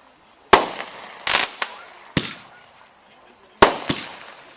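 Consumer 1.4-grade firework cake, the 51-shot 'All In' by Winda, firing: about six sharp bangs at uneven spacing, one drawn out into a short burst, each dying away quickly.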